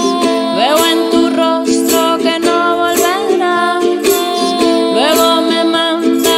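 Acoustic song: a piano accordion holds steady chords under a strummed ukulele, with a woman's voice singing gliding lines over them.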